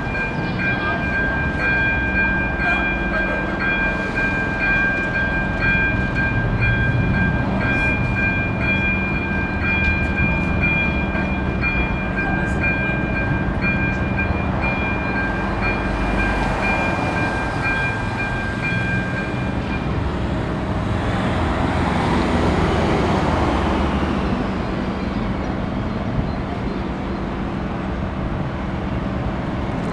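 AŽD 97 level-crossing electronic warning bell ringing in a steady repeating pattern while the barriers come down. It stops about two thirds of the way through, and a swell of passing-vehicle noise follows.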